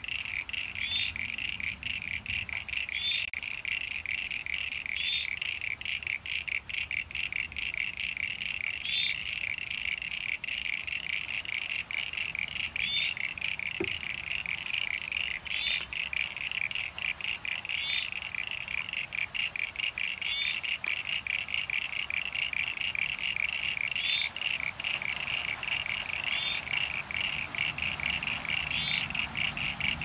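Chorus of common eastern froglets (Crinia signifera) and eastern sign-bearing froglets (Crinia parainsignifera): a dense, unbroken stream of rapid chirping pulses, with a separate higher, rising squeak every couple of seconds.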